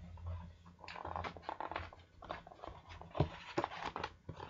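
A large hardcover picture book being handled and shifted close to the microphone: paper rustling, then a few sharp knocks in the second half, the loudest a little after three seconds.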